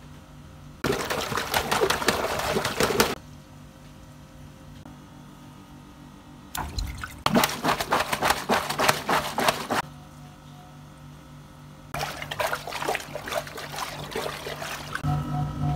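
Water-filled rubber toy being pressed and rubbed by hand, sloshing and squelching in three bursts of two to three seconds each, with quieter stretches between. A low pulsing hum starts near the end.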